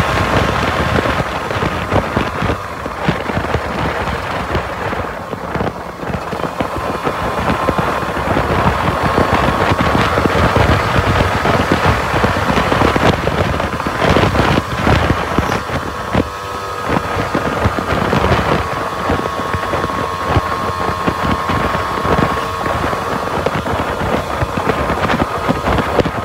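Motorcycle engine and exhaust running at cruising speed, a fast rattling beat of exhaust pulses under wind buffeting the microphone, with a faint thin whine that drifts slightly in pitch.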